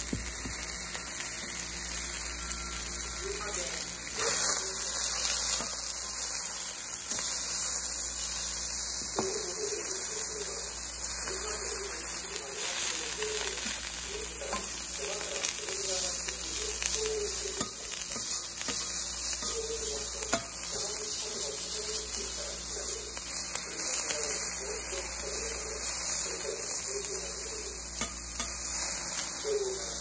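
Yakisoba noodles, cabbage and pork sizzling steadily on a flat steel teppan griddle. In the second half, a few sharp clicks come from the metal spatulas striking the griddle plate as the food is turned.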